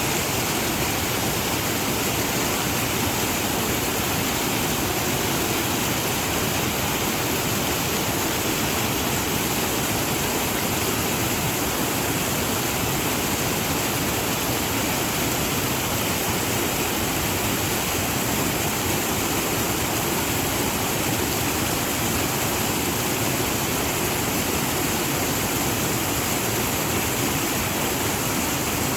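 Waterfall: water falling and rushing in a steady, even roar of noise that does not change.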